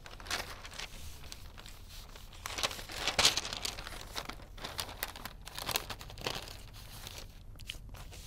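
Newspaper pages rustling and crinkling as they are handled and turned, in uneven rustles, loudest about three seconds in.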